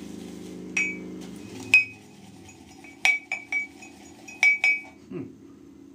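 A white ceramic shaving mug clinking sharply as a shaving brush is worked in it: single clinks about one and two seconds in, then quick runs of two or three. A low steady hum stops about two seconds in.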